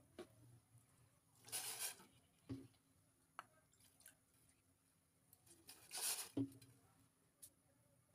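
Saucepan of water heating on a gas stove with lemongrass and spices in it: two brief hisses, each followed by a small knock, over near silence.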